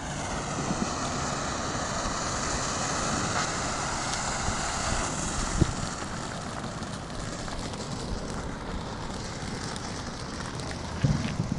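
Ground fountain firework spraying sparks: a steady rushing hiss with scattered crackles, a sharp pop about five and a half seconds in, and a brief thump near the end.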